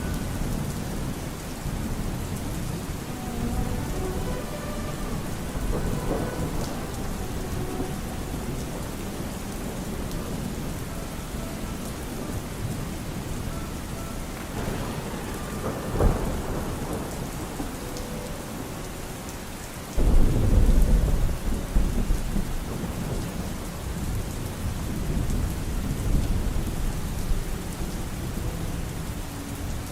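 Steady heavy rain, with a brief crack about halfway through. About two-thirds of the way in, a sudden loud low rumble of thunder breaks in and dies away over several seconds.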